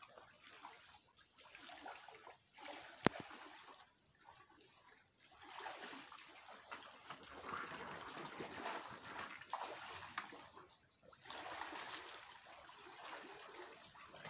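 Faint, uneven splashing of shallow pond water as a harvesting drag net holding catfish is gathered in, with a single sharp click about three seconds in.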